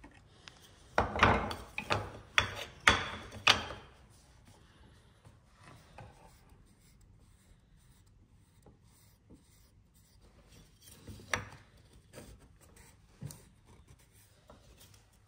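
Bench chisel paring thin slivers off a softwood halving joint for a fine fit: a quick run of short scraping cuts in the first few seconds. Then faint wood-on-wood rubbing and a light knock as the joint pieces are pushed together to test the fit.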